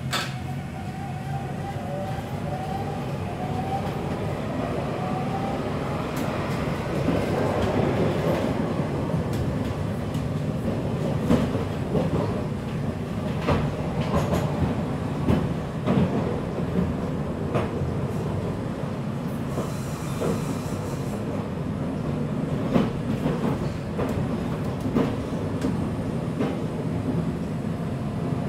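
Breda VLC tram heard from inside the passenger car: an electric motor whine rising over the first few seconds as it picks up speed, then steady wheel-on-rail rolling rumble with occasional sharp clacks over rail joints.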